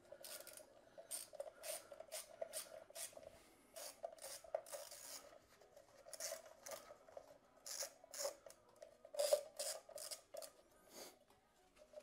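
Socket ratchet clicking in short, irregular strokes as it turns bolts on a motorcycle engine's valve cover.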